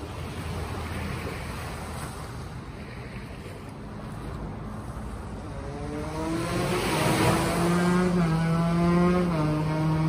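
Sea waves and wind, joined about halfway through by a motor engine that comes closer and grows louder. Its steady hum drops slightly in pitch near the end.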